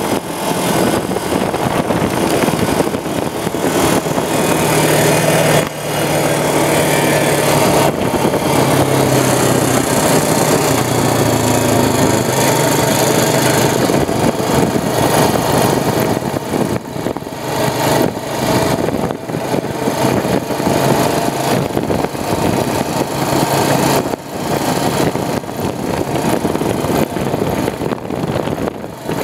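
Honda Rancher ES 350 ATV's single-cylinder four-stroke engine running under way, its pitch shifting now and then as the rider changes speed. A heavy rush of wind and road noise sits over it on the microphone.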